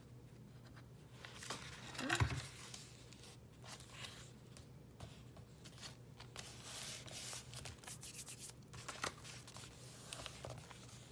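Paper rustling as the pages of a handmade altered book are turned and paper and lace pieces are handled and pressed down. There are several short rustles, the loudest about two seconds in, and a denser stretch of rustling past the middle.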